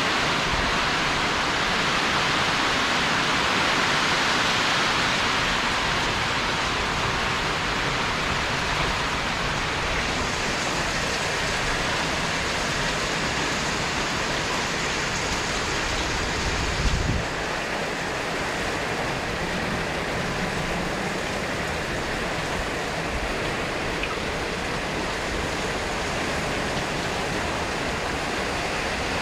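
Heavy rain pouring steadily in a windy rainstorm, a dense even hiss with wind rumbling on the microphone. A brief low thump about two-thirds of the way through.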